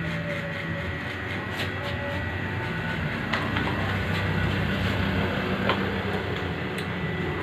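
Electric hair clippers buzzing steadily as they cut short hair, with a few light clicks.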